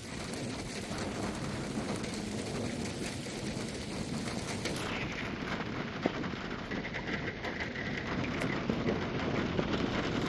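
Rain from a supercell thunderstorm falling steadily, with close drop hits heard as small clicks, growing a little heavier toward the end.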